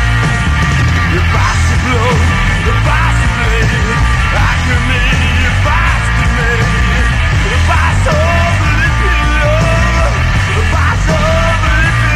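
A punk rock song with shouted vocals over a full electric band of guitar, bass and drums.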